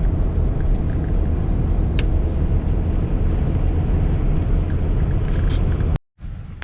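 Vehicle on the move: a steady, loud low rumble of engine and road noise, with a single brief click about two seconds in.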